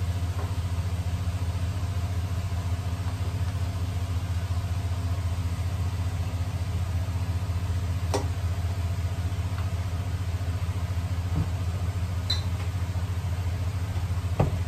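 Steady low hum, as of a kitchen appliance fan, under a few light clicks of a plastic spatula against a stainless steel pan while vegetables are stirred, the clicks about eight seconds in and a few more near the end.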